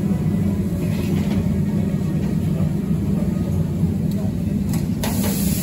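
Steady low rumble of a busy street-food kitchen, with a murmur of voices behind it and a brief burst of louder, higher noise about five seconds in.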